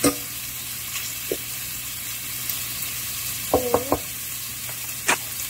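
Shrimp and chopped onion sizzling in hot oil in a pot, a steady hiss, with a few sharp taps and scrapes of a slotted spatula as they are stirred.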